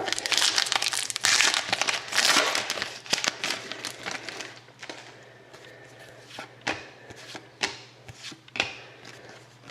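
Foil hockey card pack being torn open, the wrapper crinkling and tearing for the first few seconds, followed by quieter handling with a few sharp clicks.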